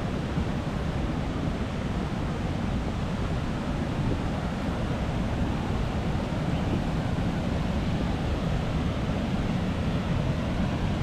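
Steady rush of water pouring over the Low Force waterfall and rapids on the River Tees.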